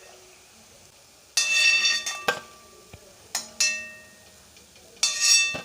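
A metal spoon clinking and knocking against a metal frying pan, four or five sharp ringing strikes spaced a second or so apart, as fried gulab jamun are lifted out and the oil is drained off.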